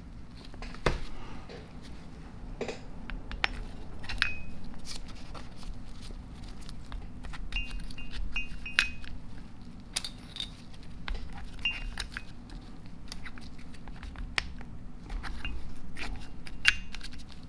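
Scattered light clicks and small metallic clinks, a few with a brief high ringing, as new vanes are slid into the freshly oiled slots of an Ingersoll-Rand 2850MAX air impact's rotor and the parts are handled in the steel cylinder.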